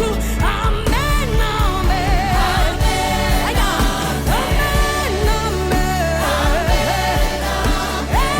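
A song: a lead voice sings long held notes, sliding up into each one, over a steady beat and bass.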